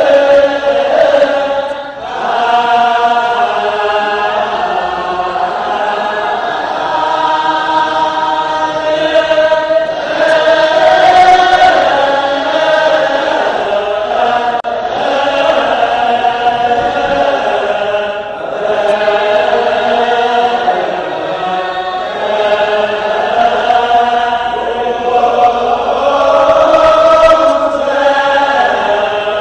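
Ethiopian Orthodox choir chanting a hymn together, the voices holding long, slowly moving notes.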